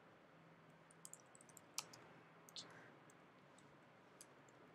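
Faint computer keyboard keystrokes: a few scattered, quiet key clicks as a short word is typed, over a faint steady hum.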